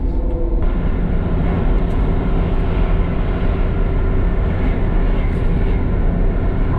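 Camper van driving, heard from inside the cabin: a steady, loud low rumble of engine and road noise.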